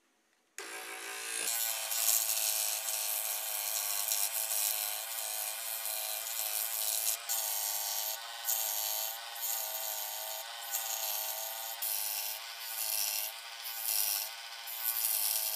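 Scroll saw running and cutting through a small piece of wood, a steady motor whine under the rasp of the blade; it starts suddenly about half a second in, and the cutting rasp drops out briefly several times as the piece is turned.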